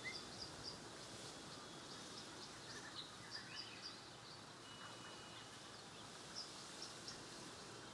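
Faint ambience of a few small birds chirping in short, high, scattered calls over a soft background hiss.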